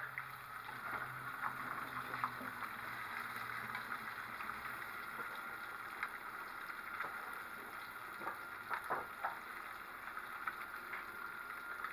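Breaded fish fillets frying in hot oil in a skillet: a steady sizzle with scattered small pops, and a few light knocks about nine seconds in as the fillets are turned with tongs.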